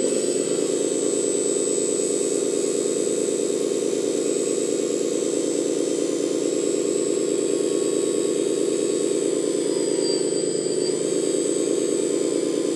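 Hydraulic pump motor of a JDM-196 RC flatbed tow truck running steadily under load with a thin high whine, driving the bed to slide forward with a car loaded on it.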